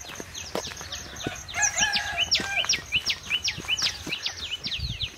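Wild birds calling in a dense run of short, high whistles that slide downward, several a second, with a lower, longer call about a second and a half in. Scattered soft knocks of footsteps on a dirt path lie underneath.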